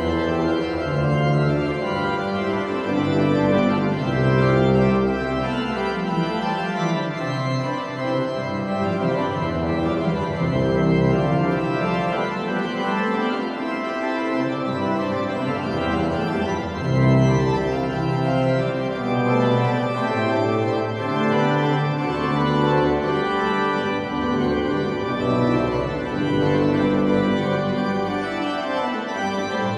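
Organ music playing slow, sustained chords over a moving bass line, without a break.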